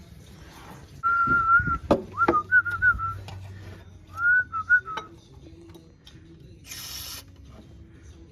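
A person whistling a short wavering tune in several phrases, with a few sharp metallic tool clinks in between. A brief hiss follows near the end.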